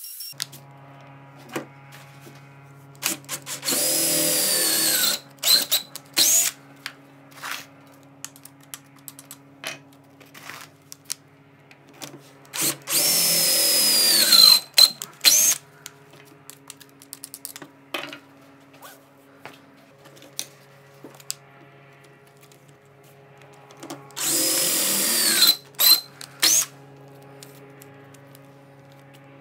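Makita 18V cordless drill boring dog holes into a wooden benchtop, in three separate runs of a couple of seconds each. Each run's whine drops in pitch toward its end. Between the runs come small clicks and clatter.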